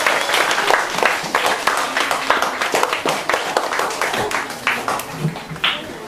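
Audience of children clapping, with some voices mixed in; the applause dies down near the end.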